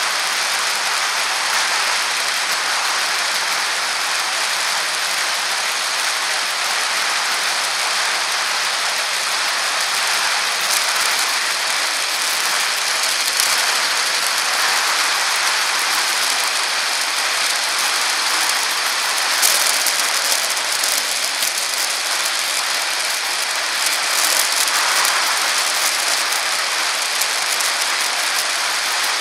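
Steady rattling hiss of a bicycle ride picked up by a camera mounted on the bike: tyre and vibration noise rolling along a paved bike path. Brief louder crackles come about thirteen and nineteen seconds in.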